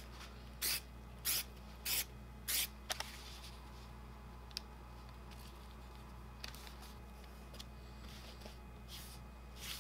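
Aerosol spray adhesive can spraying four short bursts, about half a second apart, over the first three seconds.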